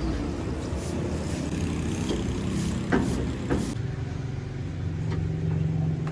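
A motor vehicle's engine running steadily, with a couple of short sharp clicks about three seconds in.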